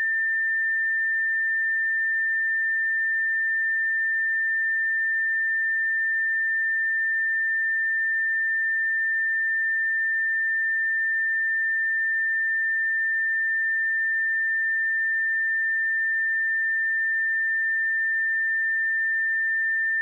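Steady pure sine-wave test tone at 1793 Hz, a single unchanging high pitch at constant level.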